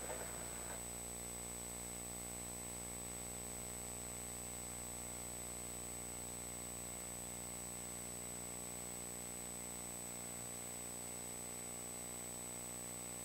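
Steady electrical hum with a ladder of overtones under an even hiss, and a thin high-pitched whine above it. Nothing starts or stops.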